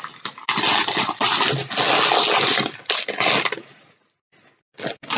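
Plastic grocery packaging and bags rustling and crinkling as items are handled, breaking off briefly about four seconds in.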